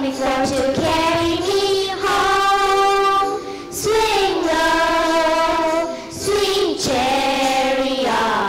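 A group of children singing a song together, in phrases with long held notes.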